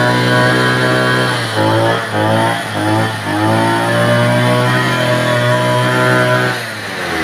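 Two-stroke Mitsubishi TU43 engine of a backpack brush cutter running fast and steady; its speed dips briefly and recovers a few times, then falls back toward idle near the end as the throttle is let off.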